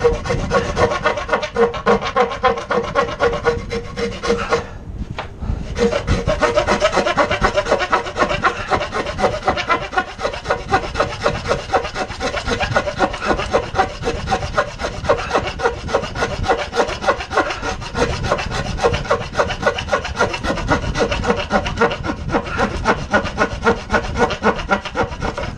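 Handsaw cutting across a softwood board: steady back-and-forth strokes, about two to three a second, with a brief pause about five seconds in.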